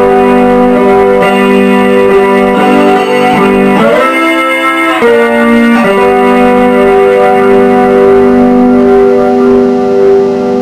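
Electric slide guitar playing a slow blues line with sliding pitch glides, then settling about halfway through into one long held note that rings on until it stops near the end.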